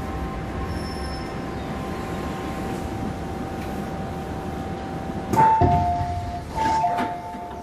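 MTR M-Train stopping at a platform, its low rumble fading under a steady hum. About five seconds in, the doors open with a knock and a two-note high-then-low door chime, which sounds twice.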